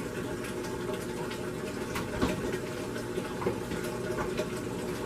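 Water running steadily, filling a container, with a couple of light knocks about two and three and a half seconds in.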